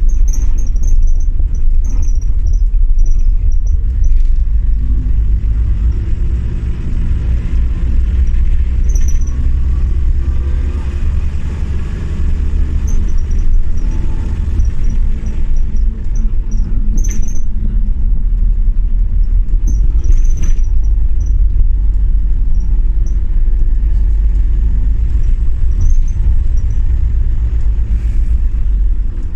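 Single-deck bus's diesel engine and road noise heard from inside the passenger saloon as the bus is driven: a steady low rumble, the engine note rising and falling with speed.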